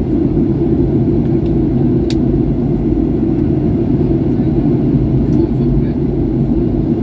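Steady low drone inside the cabin of a Boeing 737-800 in flight: its CFM56-7B turbofans and the rush of air over the fuselage. There is a brief click about two seconds in.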